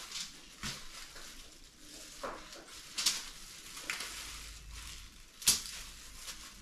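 Gloved hands handling raw fish on aluminium foil while squeezing a plastic mustard bottle: soft crinkling with several short, sharp hissing sounds, the loudest about three seconds in and near the end.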